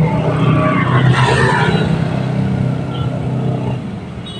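Road traffic crossing the level crossing: car and motorcycle engines running as vehicles drive over the tracks, with a faint voice in the mix. The sound fades toward the end.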